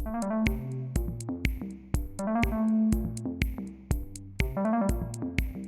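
Upbeat electronic background music: synthesizer chords and melody over a steady drum-machine beat of about two hits a second.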